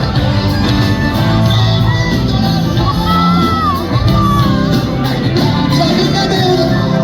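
Live pop concert music with singing, and shouts from the crowd in a large hall.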